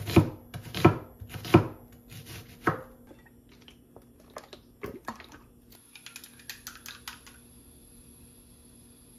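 Kitchen knife chopping an onion on a wooden cutting board, five strokes roughly two-thirds of a second apart over the first three seconds. Then only faint clicks, a soft knock about five seconds in and a brief run of small clicks near the end.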